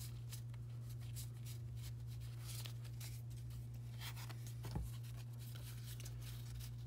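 Pokémon trading cards being handled and sorted by hand: frequent light rustles and flicks as the cards slide over one another, with a soft knock about five seconds in. A steady low hum runs underneath.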